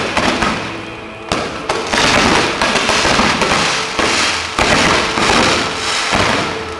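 Fireworks display with volleys of comets and shells launching, a dense hissing crackle. Fresh volleys start sharply about a second in and again past four and a half seconds.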